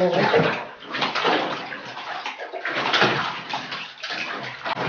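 Water splashing and sloshing in a bath as a cat is washed, coming in uneven surges.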